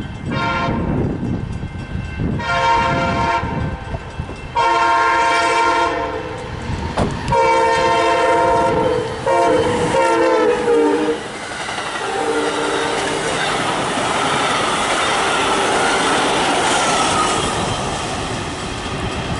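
Amtrak passenger train's Siemens Charger diesel locomotive passing at about 69 mph, sounding a series of about five horn blasts, the last one long and dropping in pitch as the locomotive goes by. After that, the rushing clatter of the passenger cars speeding past.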